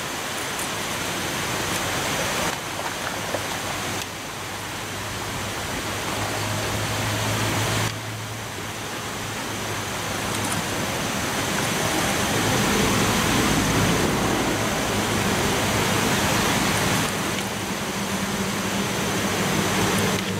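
Steady rushing noise that jumps in level every few seconds, with a low hum that comes in about six seconds in and again from about twelve seconds on.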